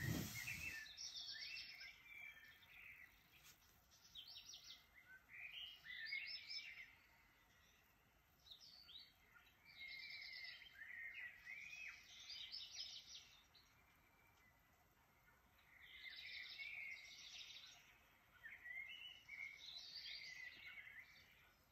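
Birds chirping and trilling faintly in short phrases every second or two, after a short thump at the very start.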